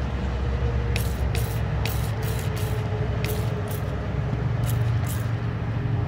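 Wind buffeting the microphone, a steady low rumble. Short, faint hissy ticks recur about every half second over it.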